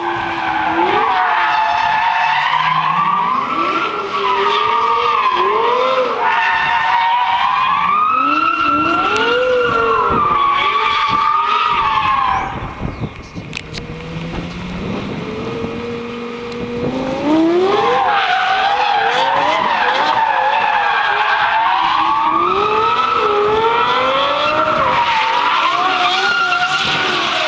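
Lexus LFA's 4.8-litre V10 revving hard, its pitch rising and falling constantly through drifts and donuts, with tyres skidding. About halfway through the engine eases off and runs quieter for a few seconds, then revs up sharply again.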